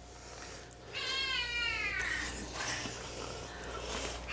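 Domestic cat giving one long meow that falls in pitch, about a second in, with another meow beginning near the end.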